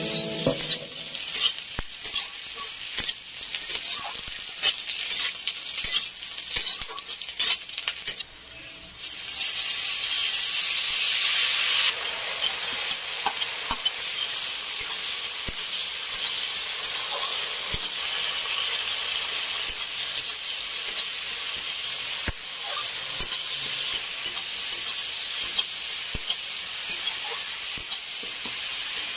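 Onions, green chillies and garlic sizzling in hot oil in a metal kadhai while a metal spatula stirs and scrapes them, with frequent sharp clicks of spatula on pan. The sizzle cuts out briefly about eight seconds in, then comes back louder for a few seconds before settling to a steady frying hiss.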